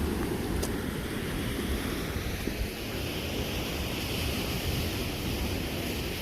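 Pacific Ocean surf washing on the shore, with wind buffeting the microphone in a low uneven rumble; the wash swells a little about halfway through.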